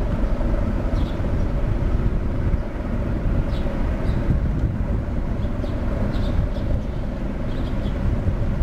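Steady low rumble of the car ferry Ishitegawa's engines as it comes in toward the pier, with short high chirps now and then.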